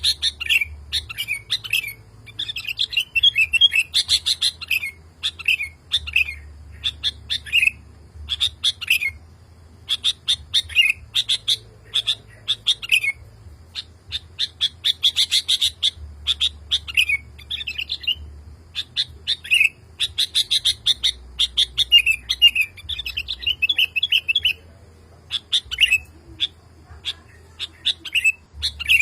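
Male sooty-headed bulbul (kutilang) singing without let-up, calling for a female: short, rapid phrases follow one another with only brief pauses.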